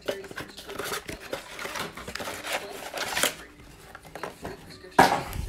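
Cardboard blaster box of NBA Hoops Premium Stock being opened and its foil card packs slid out: scattered scraping and rustling of cardboard and foil wrappers, with a louder knock and crinkle about five seconds in.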